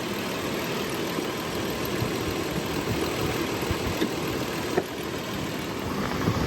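2008 Toyota Tacoma's engine idling steadily with the air conditioning switched on and running.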